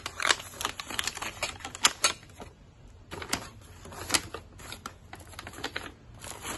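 Brown kraft paper food wrapping crackling and rustling in quick, irregular crackles as it is unfolded by hand, easing off briefly about halfway through.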